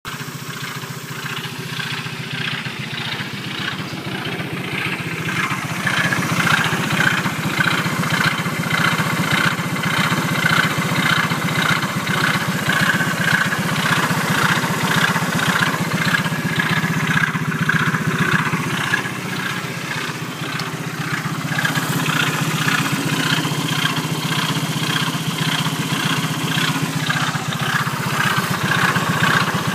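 Engine running steadily with a fast, even beat, making an abnormal sound. The owner says the problem began after the engine stopped suddenly in an incident.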